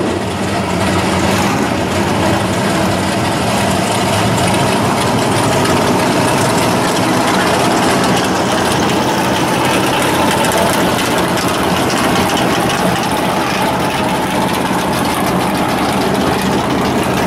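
A drag-race car's engine idling loudly and steadily as the car rolls slowly past.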